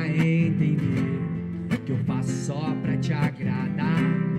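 Acoustic guitar strummed, with a man singing over it.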